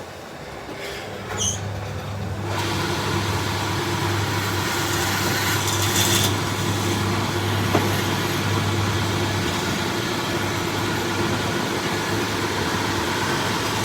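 A woodworking power tool's electric motor running steadily with a low hum, joined about two and a half seconds in by a loud steady hiss of the tool working the wood.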